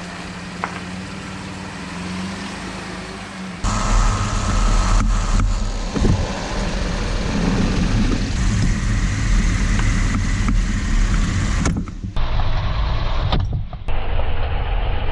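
Chevy Colorado ZR2 pickup idling with a steady hum. About three and a half seconds in, the sound switches abruptly to the truck on the move, heard from a camera in the front wheel well: loud rumbling road and wind noise with a few sharp knocks.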